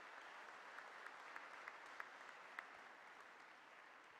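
Faint applause from an audience, an even patter of many claps that slowly dies away near the end.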